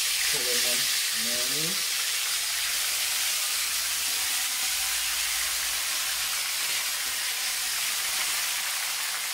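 Seasoned chicken backs frying in a pan of very hot oil: a loud, steady sizzle just after the pieces go in, easing slightly toward the end.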